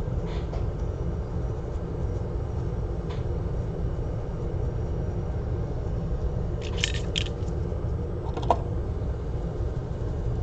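A steady low machine hum from the repair bench, with a few short sharp clicks of small tools against the board, two close together about seven seconds in and one more about a second and a half later.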